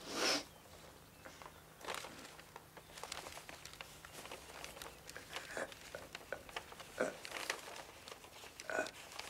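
Paper rustling and crinkling in short, scattered bursts as a long sheet of paper is unfolded and held up, the loudest rustle just after the start.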